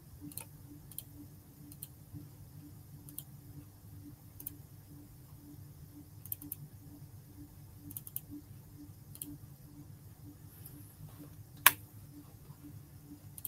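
Computer mouse clicking now and then, with one sharper click near the end, over a faint low hum.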